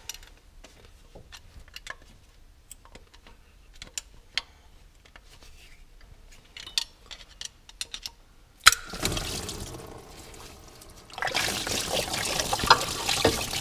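Light clicks and knocks of hand work on the engine as the water pump is worked loose. About nine seconds in there is a sharp knock, and engine coolant starts rushing out of the opened water-pump housing, splashing loudly from about eleven seconds.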